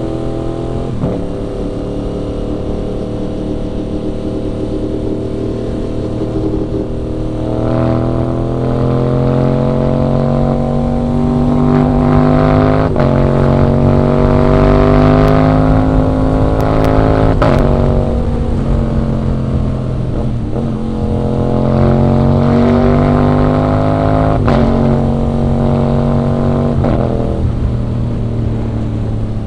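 Aprilia RS 660's parallel-twin engine pulling through the gears under acceleration. Its pitch climbs steadily in each gear and drops back at each upshift, several times over. It is loudest in the middle stretch.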